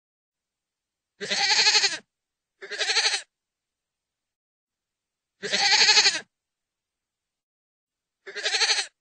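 A goat bleating four times, each call under a second long with a wavering, quavering tone, separated by dead silence.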